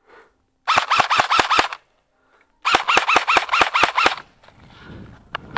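Airsoft rifle firing two bursts of rapid shots at about six a second, the first about a second long and the second about a second and a half. Near the end come rustling footsteps on the forest floor.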